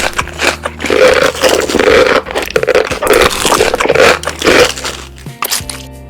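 Background music with a steady low bass, mixed with repeated crackly scraping noises that come and go.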